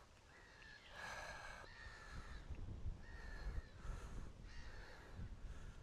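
Crows cawing over and over, about one call a second, the loudest about a second in, with wind rumbling on the microphone.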